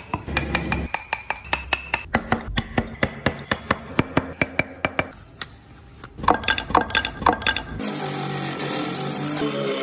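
Quick run of sharp taps, about four or five a second, as tools strike wood, then about eight seconds in an abrupt change to the steady rasping of a file being worked over wood.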